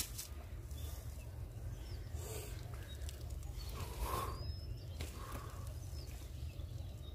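Faint riverside ambience: a steady low rumble with a few faint, brief bird chirps.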